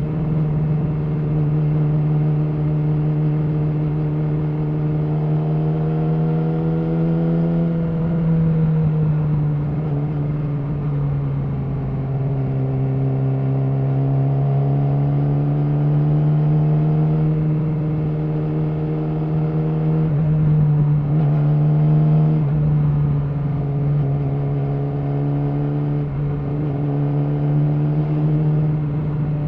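Yamaha R6's 600cc inline-four engine through an Akrapovic slip-on exhaust, running steadily under way at moderate revs. Its pitch drifts gently up and down with small throttle changes, with a couple of brief dips in the second half.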